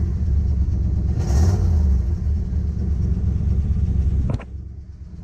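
1972 Jeep Wagoneer engine running steadily after a cold start, swelling briefly about a second in. A sharp knock comes about four seconds in, and the sound drops for a moment after it.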